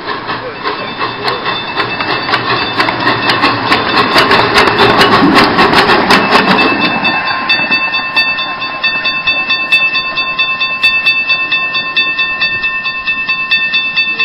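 Small 15-inch gauge steam locomotive running, with a quick, even chuffing and clicking that grows louder to a peak about halfway. From about halfway a steady high tone with overtones holds over the regular beat.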